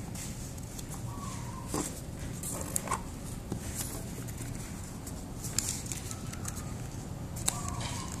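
Chickens clucking in short calls, once about a second in and again near the end, over scattered crisp crackles of paper strips being creased and folded by hand.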